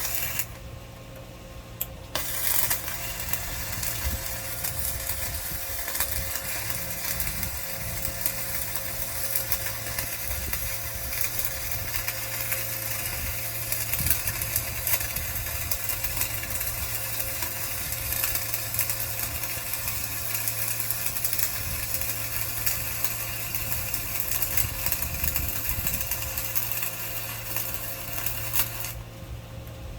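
Hyundai HG200 welder's arc crackling and sizzling steadily as a weld bead is laid, starting about two seconds in and stopping shortly before the end, over the steady hum of the machine.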